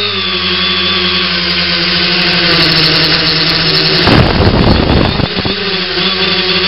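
Electric motors and propellers of an X900 tricopter in flight, a steady high buzzing whine close to the craft. About four seconds in, a louder, rougher rushing noise takes over for a second and a half before the steady whine returns.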